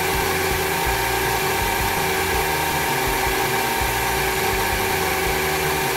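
Cordless drill running at a steady speed, turning a glass-topped lapping disc while a hair clipper blade is held flat on it in grinding paste. A steady hum with several fixed tones.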